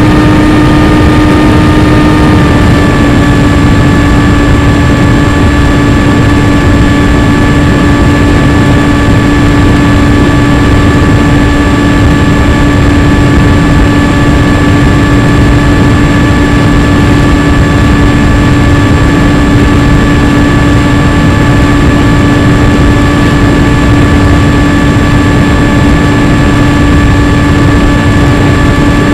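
An RC plane's motor and propeller run steadily at cruising throttle over heavy low wind rush. The pitch drops a little about two and a half seconds in, then holds level.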